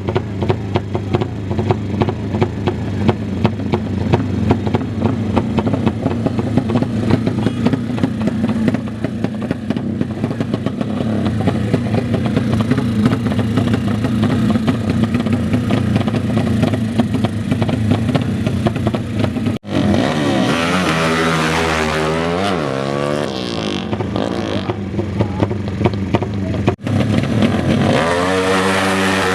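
Loud racing motorcycle engines: a dense, rapid popping exhaust note at first, then after a sudden cut about two-thirds in, engines revving up and down repeatedly, with another cut and more revving near the end.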